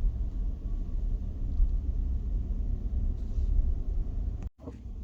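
Steady low rumble of a car driving, heard from inside the cabin. The sound cuts out abruptly for a moment about four and a half seconds in.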